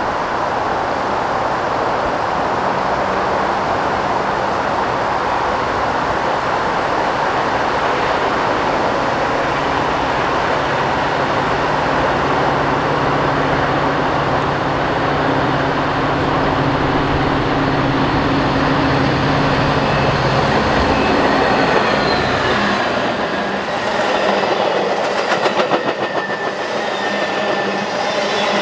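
A train rolling past close by with a steady rumble of wheels on rail. A low hum drops away about 21 seconds in. Near the end come high wheel squeal and a rapid clatter of wheels over rail joints.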